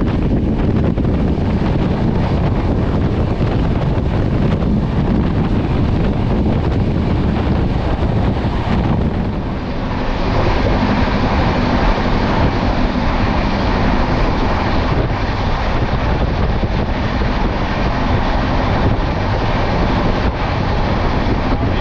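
Passenger train running at speed: a steady rumble with wind buffeting the microphone. About ten seconds in, the noise turns brighter and hissier.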